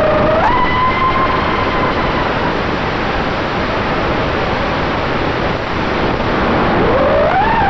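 Onboard audio of an FPV quadcopter's Emax RS2205 2300 kV brushless motors and propellers: the motor whine rises in pitch about half a second in, fades into the rush of air through the middle, then climbs again near the end. Heavy wind noise on the camera's microphone.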